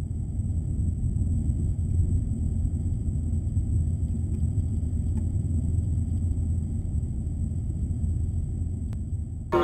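Deep, steady rumble of a bushfire burning close by in forest, with a thin high steady whine over it.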